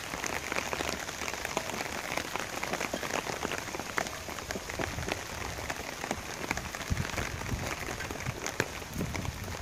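Heavy downpour: rain falling steadily on wet stone paving, with many close drops ticking sharply through the hiss.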